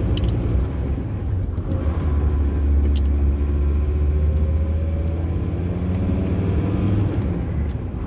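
Camper van engine and road rumble heard from inside the cab while driving, the engine note dipping and then rising again as the van changes speed on the lane. A couple of faint ticks or rattles sound in the cab.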